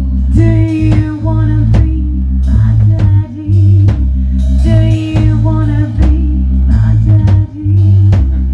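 A band playing a song: a drum kit keeps a steady beat under a heavy, repeating bass line, with a melody line above.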